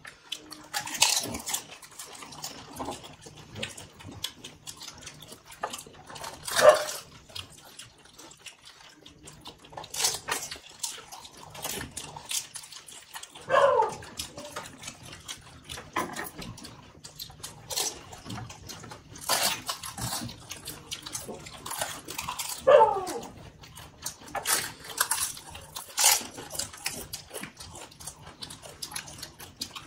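Panipuri being eaten: crisp puri shells crunching and the spiced water slurped, many sharp clicks and wet smacks, with a short falling cry four times.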